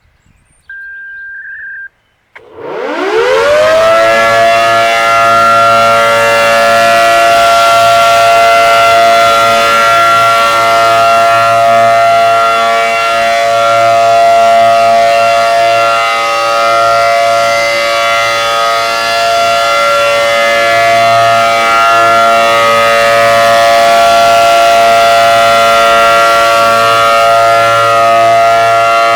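ACA Allertor 125 electromechanical warning siren winding up from silence in a rising wail, then holding a steady, loud Alert tone. A short steady beep sounds about a second in, just before the wind-up.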